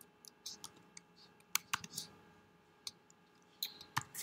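Scattered keystrokes and clicks on a computer keyboard, coming a few at a time with short pauses between.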